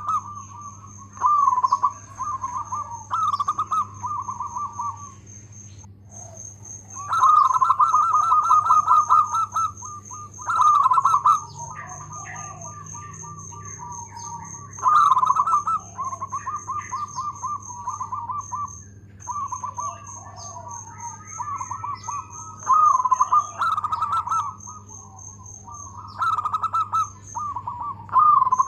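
Zebra dove (perkutut) cooing its song: phrase after phrase of fast, pulsed coos, each run lasting one to a few seconds with short pauses between. A faint, steady high-pitched pulsing sounds behind it.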